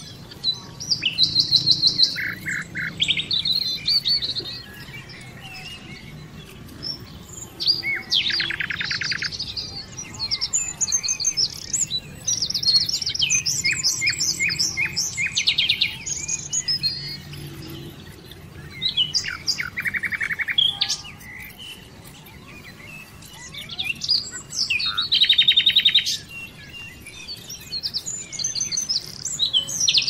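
Small birds chirping and trilling in quick, high runs of notes, coming in short bouts every few seconds.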